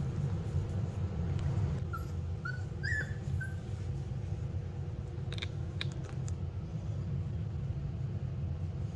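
Rottweiler puppies giving four short, high whimpering squeaks about two to three and a half seconds in, over a steady low hum from a box fan, with a few light clicks a little after the middle.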